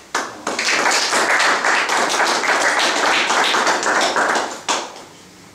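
Audience applauding: dense hand-clapping that starts suddenly and dies away after about four and a half seconds.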